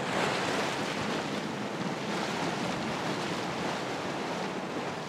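Steady rush of water washing along a sailboat's hull as it moves through the sea, with wind noise on the microphone.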